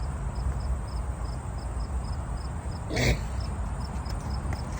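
An insect chirping steadily, short high chirps about three times a second, over a constant low rumble. About three seconds in there is one brief, louder noisy burst.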